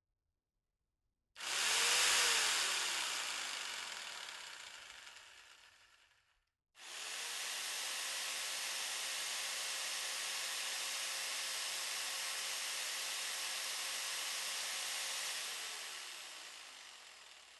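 An electric power tool switched on twice and spinning with no load. The first time it gets up to speed and is released at once, its pitch falling as it winds down. The second time it runs at a steady pitch for about eight seconds, then winds down with a falling whine.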